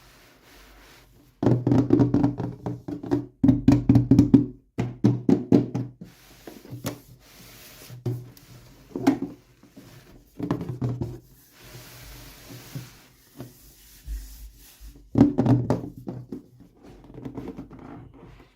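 Hands handling plastic toy packaging and small toy pieces, making runs of knocks and clicks in bursts with short pauses between.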